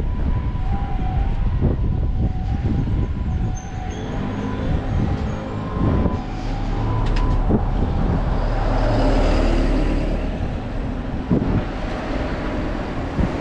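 Street traffic beside a city road, with a steady low rumble and a vehicle passing close, its noise swelling and fading between about eight and eleven seconds in. Faint steady tones sound under it in the first half and stop about six seconds in.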